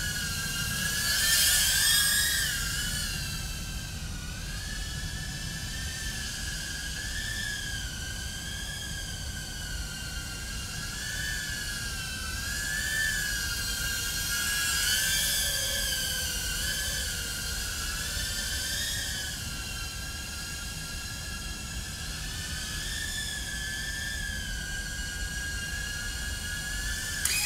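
Tank95-HD 2-inch FPV quadcopter's brushless motors and propellers whining steadily, the pitch wavering up and down with throttle. It swells louder about two seconds in and again around fifteen seconds. A brief sharp click comes right at the end.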